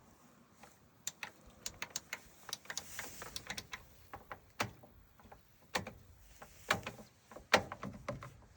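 A run of irregular sharp plastic clicks from a Bosch Classixx washing machine's control panel, like the programme selector dial being turned through its settings, with a few heavier knocks after the middle.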